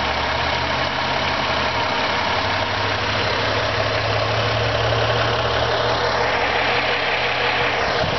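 Ford Escape's 3.0-litre Duratec 24-valve V6 idling steadily, heard up close in the open engine bay.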